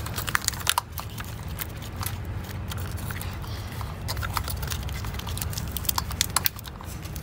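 Plastic wiring-harness connectors being handled and pushed onto fuel injectors, giving irregular small clicks and rattles, over a steady low hum.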